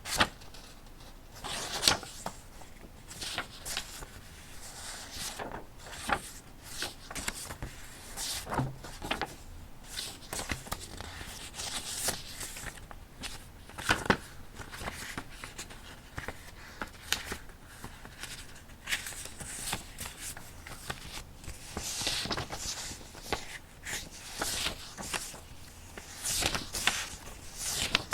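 Paper being handled on a desk: irregular rustling and crinkling of sheets, with scattered small taps and clicks.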